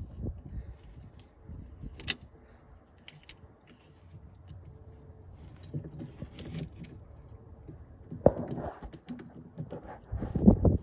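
Small metal parts and hand tools clicking and clinking while a machine's control lever assembly is fitted back together, with a sharp click about 2 s in, another about 8 s in, and a busier run of knocks near the end.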